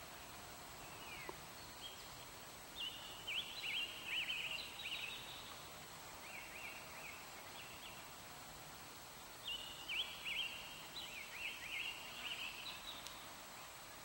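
A small songbird singing two bouts of quick, high chirping phrases with short down-slurred notes, several seconds apart, over a faint steady background hiss.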